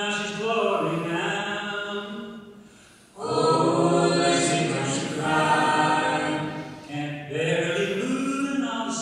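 A bluegrass vocal group of men's and women's voices singing a cappella in harmony, holding long notes, with a short breath break between phrases about three seconds in.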